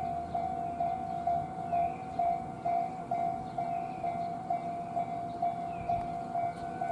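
Japanese railway level-crossing warning bell ringing without pause at about two strikes a second, with a second, fainter and higher bell ringing alongside it, over a low rumble. The alarm keeps on ringing because the crossing stays closed for a long time.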